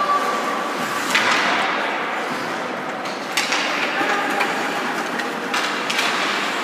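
Ice hockey play in an arena: a steady hiss of skates on the ice, with sharp clacks of stick and puck about a second in and again around three and a half and six seconds in.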